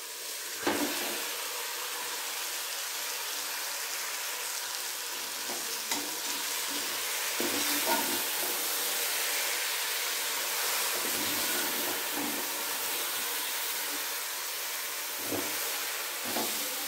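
Marinated chicken pieces sizzling as they fry in the hot onion-tomato masala in a pressure cooker, a steady frying hiss. A metal spoon stirring them knocks and scrapes against the pot now and then.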